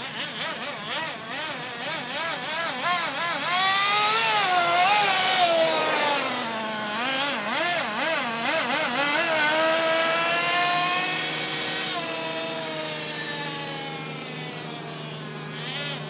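Traxxas S-MAXX nitro RC truck's small two-stroke glow engine revving up and down as the truck drives, its pitch rising and falling over and over. It is loudest in the middle, then settles toward a steadier, lower tone near the end.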